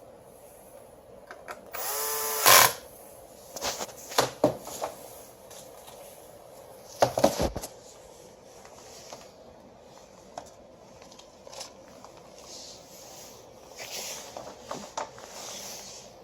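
A power screwdriver runs for under a second with a rising whine about two seconds in. Scattered clicks and knocks of parts being handled follow, with a louder clatter about seven seconds in.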